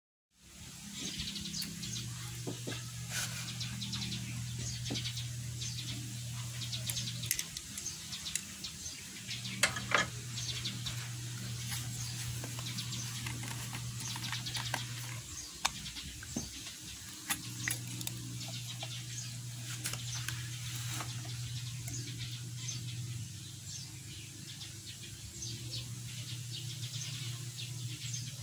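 Birds chirping, with scattered light clicks, over a low steady hum that comes and goes in stretches of a few seconds.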